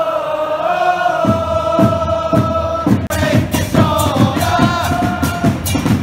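Football supporters chanting in unison, one long note held at first, then a steady drum beat joining about a second in under the chant.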